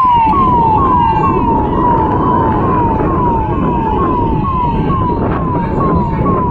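Electronic emergency-vehicle siren in a fast repeating pattern, each note sliding down in pitch, about two notes a second, over a constant low noise.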